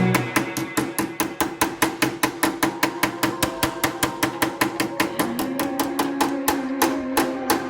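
Background music: a song's build-up with a fast, even ticking beat of about six ticks a second over held tones.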